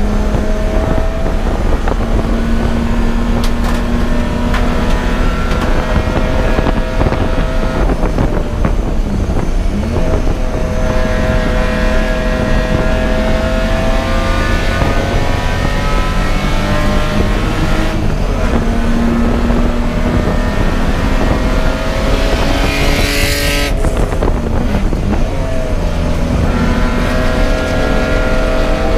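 Racing car engine running hard under load, its pitch climbing and falling with throttle and gear changes, dropping twice, about ten seconds in and again near the end, then climbing again. A brief loud rushing hiss cuts in about 23 seconds in.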